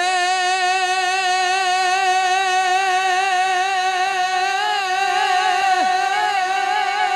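A man singing one long held 'e' note with a wavering vibrato, the drawn-out opening call of a Gujarati Charani devotional song, over a steady harmonium note.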